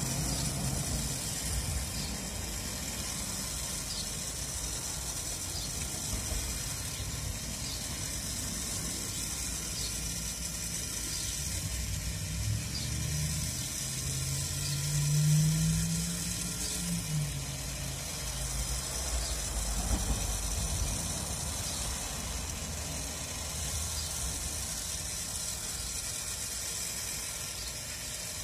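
Electric rotisserie turning meat over charcoal: a steady low hum with faint ticking. A louder humming tone rises and fades around the middle.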